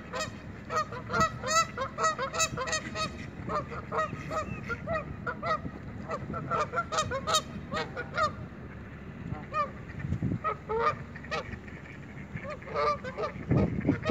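Canada geese honking over and over in short, overlapping calls, thick for the first half, thinning out, then picking up again near the end.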